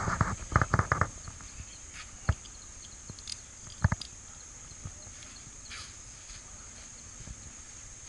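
Tennis balls knocking on a hard court, struck and bouncing: a quick run of knocks in the first second, then single knocks about two and four seconds in. A steady high-pitched hiss runs underneath.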